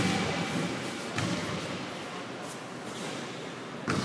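Thuds ringing out in a large echoing hall: one at the start, a fainter one about a second in, and a louder one near the end, over a steady background hum of the hall.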